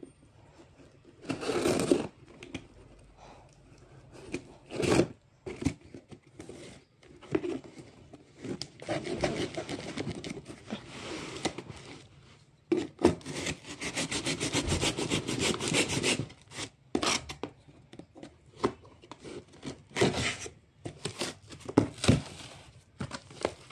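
Clear packing tape on a cardboard box being cut and scraped at with a small tool, and the cardboard pulled open: irregular scraping, rubbing and ripping, with two longer stretches of quick rasping strokes near the middle.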